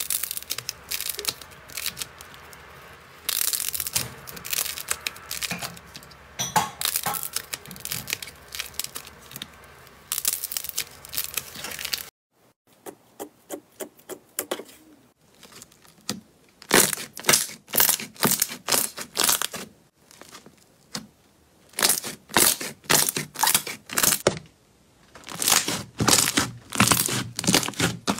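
Hands squeezing and kneading slime: dense sticky crackling for about twelve seconds. Then a different slime is pressed and worked, giving loud sharp pops and clicks in quick clusters with short pauses between them.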